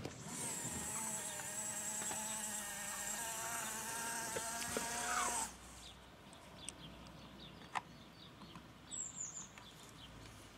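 Small electric motor in a model road-warning trailer whirring as it raises the trailer's arrow board, running steadily for about five seconds, then stopping abruptly with a brief drop in pitch. A few faint clicks follow.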